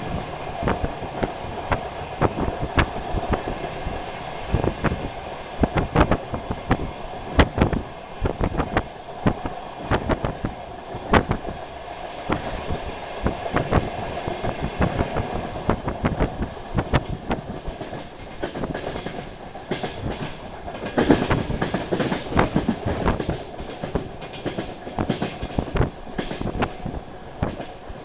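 DR1AMv diesel multiple unit running along the line: its wheels clatter over rail joints and points in a quick, irregular run of clicks over a steady drone, with a louder stretch about three-quarters of the way through.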